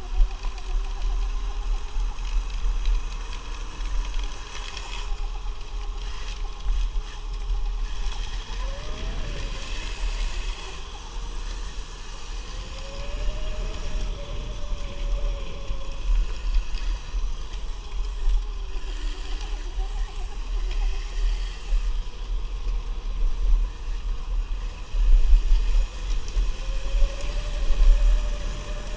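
Electric dirt bikes riding along a dirt trail: heavy low rumble from wind and the ride, with a thin electric motor whine that rises and falls with speed. The rumble gets louder near the end.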